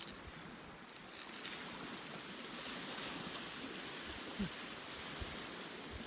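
Surf washing on a shingle beach: a steady hiss of waves that swells slightly about a second in.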